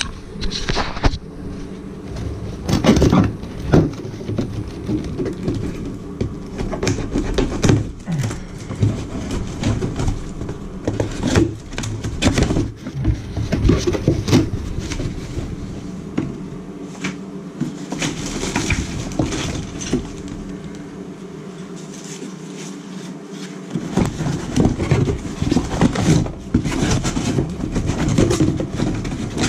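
Irregular knocks, clicks and scraping as the new pressure-balancing shower valve and its packaging are handled.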